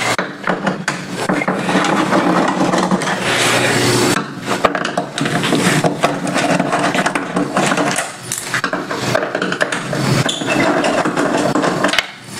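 Close rustling and knocking of a hand-held camera rubbed against a sleeve and shirt, mixed with a hand screwdriver clicking and scraping as screws are turned out of an LCD TV's back cover. The noise is dense and full of sharp clicks, with short lulls about four, eight and twelve seconds in.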